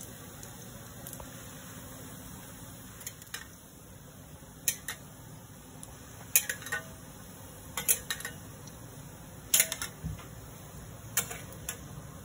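Falafel deep-frying in a metal kadhai with a steady sizzle, while a metal spatula knocks and scrapes against the pan in a series of sharp clinks, most of them in the second half.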